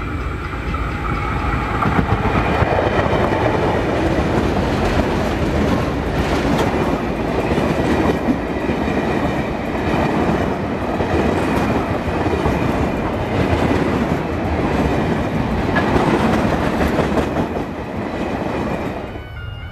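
A 48 class diesel locomotive passes close by at the head of an oil train, followed by a string of tank wagons rolling past with a clickety-clack of wheels over the rail joints.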